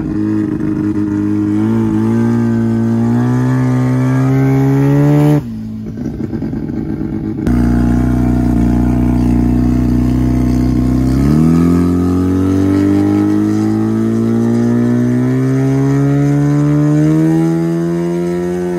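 Rotary engine of a rotary-swapped Suzuki Sidekick heard from inside the cabin, pulling hard with its pitch climbing steadily for about five seconds before it breaks off. Later it picks up again and climbs for several more seconds, then falls at the very end as it shifts.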